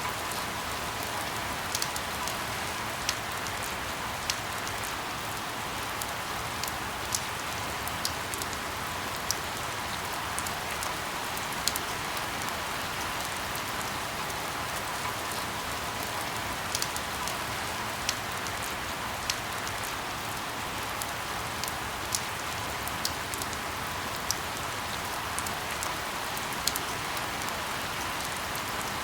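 Steady rain falling, an even hiss with scattered sharper drop ticks every second or so.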